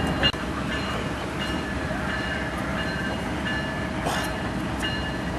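Diesel locomotive running steadily as an Amtrak P42DC pulls away along the yard tracks, with a short knock just after the start.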